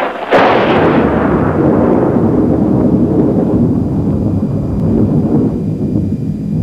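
A loud boom: a sharp crack about a quarter second in, followed by a long, deep rolling rumble lasting about six seconds, like a thunderclap or explosion sound effect.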